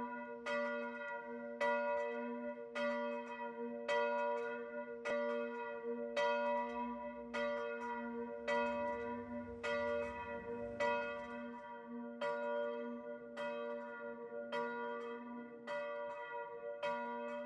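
A church bell in a free-standing wooden bell tower tolling, struck about once a second, its hum ringing on between strokes.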